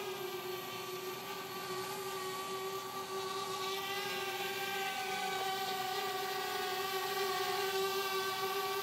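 Parrot Bebop quadcopter drone in flight: its four rotors making a steady, even-pitched whine, slowly growing louder.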